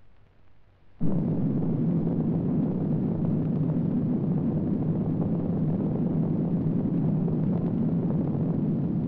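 Explosion sound effect for an animated nuclear mushroom cloud: a loud, deep, steady noise that starts suddenly about a second in and cuts off abruptly near the end.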